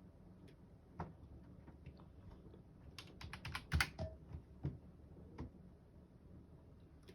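Light clicks: a single one about a second in, a quick run of about ten in a row a little past the middle, then a few spaced single clicks.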